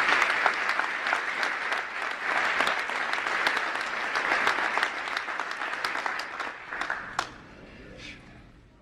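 A large crowd applauding, a dense, steady spatter of many hands clapping that thins out over the last couple of seconds and stops abruptly.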